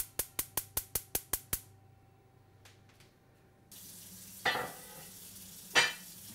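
Gas hob spark igniter clicking rapidly, about five clicks a second, and stopping about a second and a half in as the burner is lit under the pot of orange juice. After a short hush a steady hiss starts, with two sharp knocks near the end.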